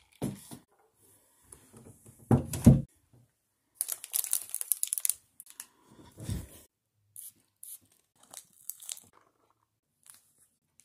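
A plastic snack wrapper crinkling and rustling as it is handled, loudest for about a second and a half near the middle. Loud handling thumps a couple of seconds in and another about six seconds in.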